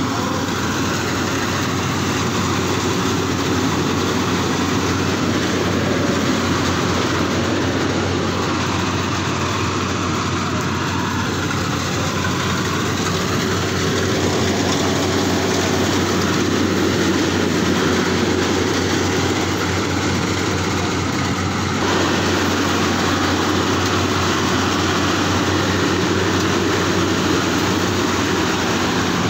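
Rice combine harvester running: a steady mechanical drone with a low hum, shifting slightly about three-quarters of the way through.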